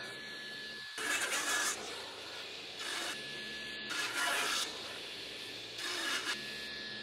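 Walnut strip scraping and rubbing along the table saw's table and fence in four short strokes as it is pushed through and drawn back, with a faint steady high tone between the strokes.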